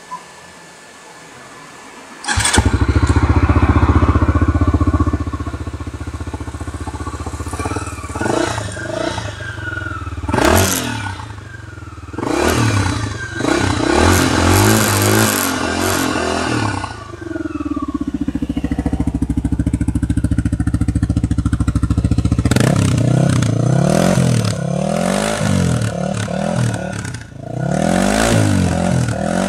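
CPI SM250's single-cylinder DOHC engine on its stock exhaust starting up about two seconds in, then idling. It is blipped and revved several times, the revs rising and falling, with steady idle in between.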